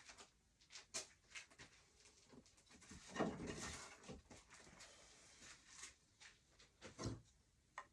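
Pieces of leftover wood knocking and sliding against each other as they are sorted through by hand: scattered light knocks, with a longer rubbing scrape about three seconds in.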